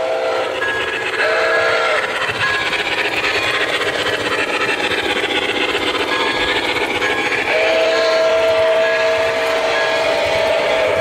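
Model freight train of covered hoppers rolling past with a steady clatter of wheels on track. The locomotive's sound unit blows a chord of several steady tones, once briefly about a second in and again long from about seven and a half seconds on.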